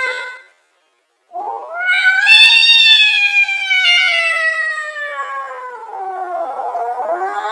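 Angry cat yowling: a long drawn-out caterwaul that rises, then slowly sinks over about five seconds. A second yowl starts rising near the end, and the tail of an earlier one fades out just after the start.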